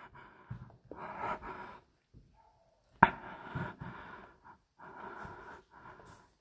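A man breathing heavily close to the microphone, a series of short rasping breaths with pauses between them, and a sharp click about three seconds in.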